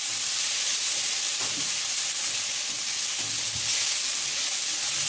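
Onions, carrots and chopped garlic sizzling steadily in a hot cast-iron skillet, stirred with a spatula that knocks lightly against the pan a couple of times.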